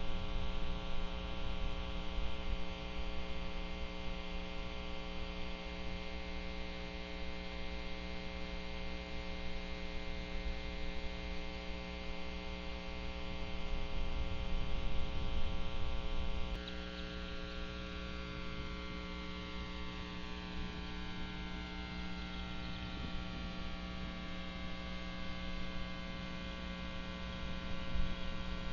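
Steady electrical hum from the nest camera's audio feed, a stack of constant tones, with an uneven low rumble underneath. About sixteen seconds in, the hum's upper tones change abruptly.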